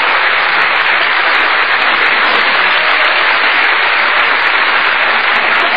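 A large theatre audience applauding steadily at the end of a comedy sketch.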